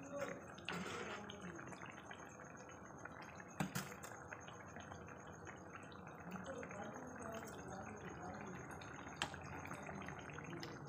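Fish curry with mustard greens boiling in a steel kadai, a steady soft bubbling. Two short knocks cut through it, about four and nine seconds in.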